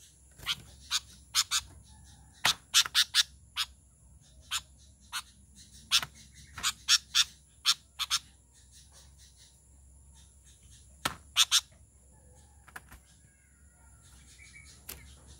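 Sooty-headed bulbul calling: short, sharp notes in quick clusters for the first eight seconds or so, then a pause and another quick cluster a few seconds later.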